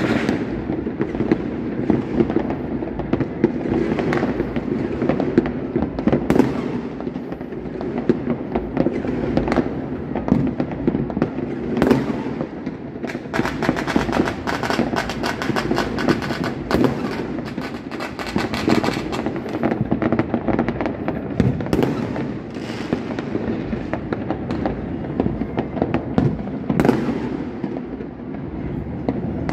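Many fireworks going off across a city at once: a continuous roar of distant booms with frequent sharper bangs, and a fast run of crackling lasting several seconds near the middle.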